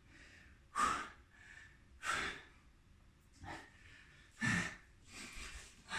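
A man breathing hard, with about five heavy breaths spaced a little over a second apart: he is out of breath after a hard set of push-ups.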